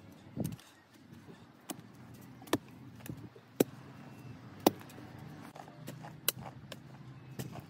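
A metal hoe blade chopping into clay soil with sharp strikes about a second apart, six in all, the first preceded by a duller thud.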